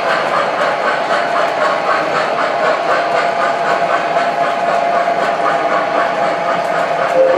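O scale three-rail model train running on its track: steady rolling noise and hiss with a quick, even clatter of about four beats a second.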